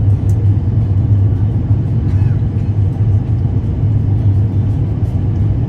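Airliner cabin noise: a steady low rumble of jet engines and airflow heard from inside the passenger cabin.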